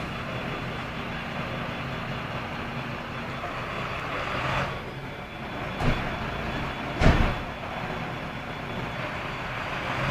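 Fire engines' diesel engines running steadily at idle, with two loud thumps, about six and seven seconds in.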